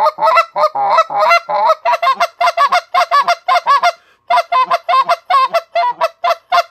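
Short-reed Canada goose call blown in a fast run of short honking notes, about three or four a second, each breaking from a lower to a higher pitch, with one brief pause about four seconds in.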